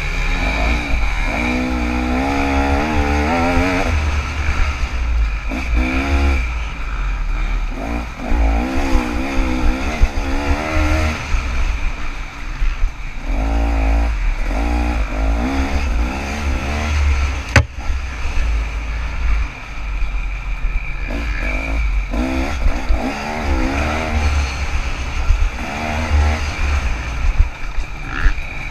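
KTM 300 two-stroke dirt bike engine revving up and down over and over as it is ridden hard, heard from an onboard action camera with heavy low wind and bump rumble underneath. There is one sharp knock about two-thirds of the way through.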